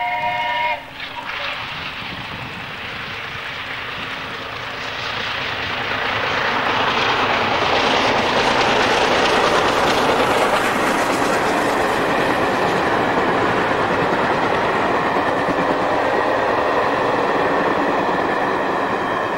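A steam locomotive's whistle sounds a chord of several notes and cuts off just under a second in; then the locomotive and its train of coaches pass at speed, a rush of noise with wheels clattering over the rails that swells over several seconds and stays loud as the coaches go by.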